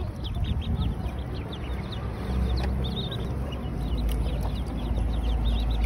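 A crowd of ducklings peeping, many short high calls overlapping constantly, over a steady low rumble.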